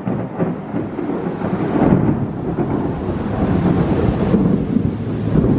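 Thunder rolling and rumbling after a nearby lightning strike, loud and drawn out with swells, over rain.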